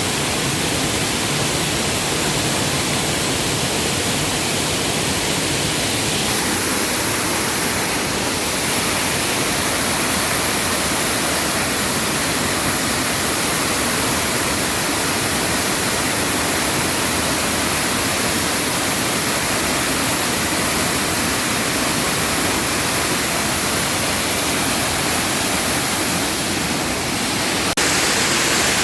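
Waterfall, a loud and steady rush of falling water. The hiss grows brighter about six seconds in, and there is a single sharp click near the end.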